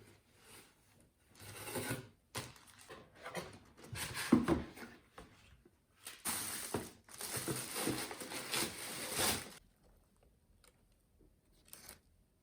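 Irregular bouts of rustling and crinkling handling noise, three main stretches, with a sharper knock about four seconds in.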